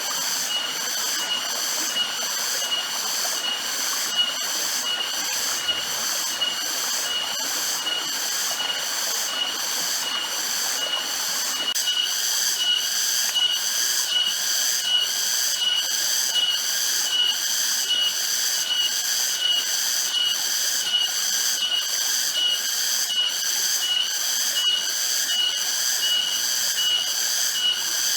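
Cicadas shrilling in a loud pulsing chorus, about two pulses a second.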